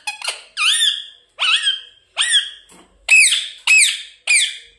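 Pet parrot giving about seven short, sharp squawks in quick succession, each sweeping up and down in pitch: angry calls.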